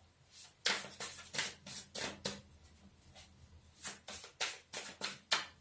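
Tarot cards being shuffled by hand: a run of short card slaps, then a pause, then a second run.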